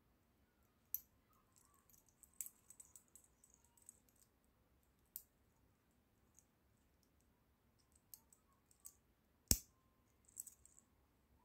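Stainless steel watch bracelet and fold-over clasp being handled: scattered light metallic clicks and clinks, with one louder, sharper click late on.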